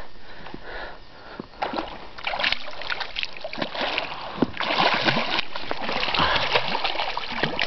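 Water splashing as a hooked lake trout thrashes at the surface beside the boat, caught up on the rim of the landing net. The splashing is irregular, light at first and busier after the first second or two.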